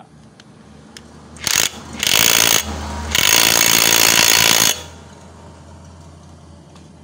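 Cordless impact wrench with a 22 mm socket hammering a scooter's front CVT pulley nut tight: a brief burst, then a longer run that eases for about half a second and comes back for about a second and a half before stopping.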